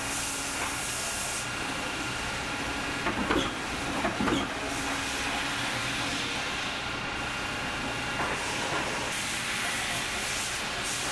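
Hydraulic clicker press running with a steady hiss while leather is die-cut. A few knocks come about three to four seconds in as the steel cutting dies are handled and pressed.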